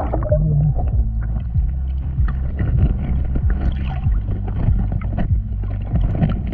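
Underwater sound through an action camera's waterproof housing: a steady, muffled low rumble with scattered small clicks and pops.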